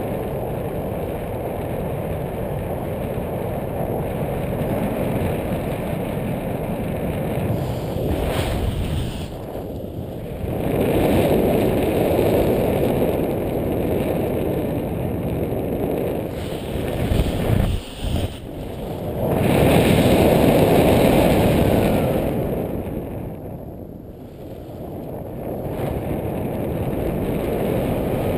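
Wind rushing over the microphone of a paraglider pilot's camera in flight. It swells louder twice and eases again, with a brief dropout part way through.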